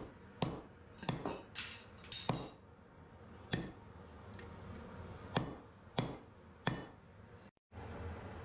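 Hand hammer striking a red-hot spearhead on an anvil: about ten sharp, ringing blows, several in quick succession at first, then three more spaced well apart.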